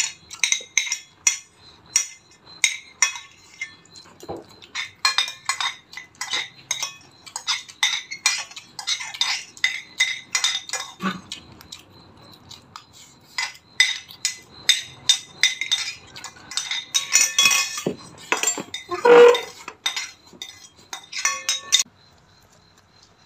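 Metal spoons clinking and scraping against ceramic plates in quick, irregular taps as people eat rice.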